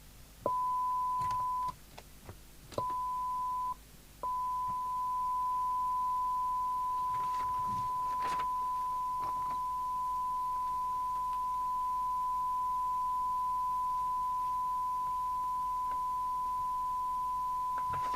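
Steady 1 kHz test tone from the LCL Communicators NI440DX CB radio's speaker, cutting off and back on twice in the first few seconds as the squelch closes and opens around its threshold, then holding steady. A click comes each time the tone cuts back in.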